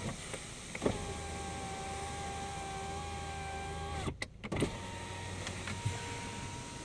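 Car power-window motor running the door glass, with a steady whine. It stops with a click about four seconds in, then runs again half a second later. The switch is being held through the one-touch window initialisation, and the freshly greased regulator is running without squeaks.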